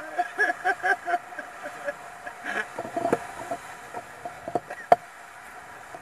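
Ocean racing sailboat under way at sea: steady rush of wind and water with a steady mechanical whine, a few short voice-like sounds in the first second, and one sharp knock near five seconds in.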